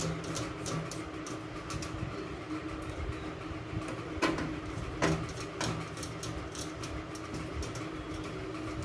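Hand screwdriver turning the rear screws into a steel PC cabinet's side panel: small scraping clicks of the screw and bit, with a few sharper clicks about four and five seconds in, over a steady low hum.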